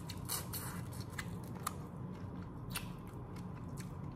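Boiled crawfish being shelled and eaten: a scatter of small, irregular cracks and clicks of shell breaking, with chewing.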